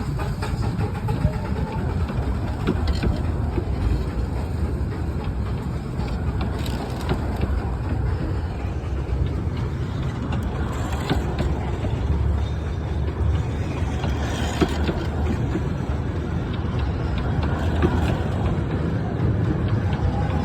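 A 15-inch gauge miniature steam train running as it departs, a steady low rumble with scattered faint clicks from the wheels and track.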